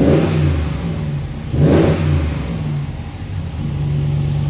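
Ram 1500 DS pickup's exhaust through a newly fitted aftermarket Kuluin muffler, replacing the large stock muffler, as the engine is revved twice in quick blips, once at the start and again under two seconds in, then settles to a steady idle. It sounds like a V8.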